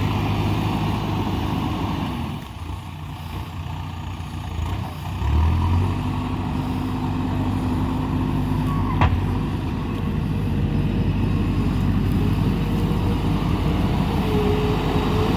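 JCB 3DX backhoe loader's diesel engine running under work. It eases off for a couple of seconds, then picks up again, with a single sharp knock about nine seconds in.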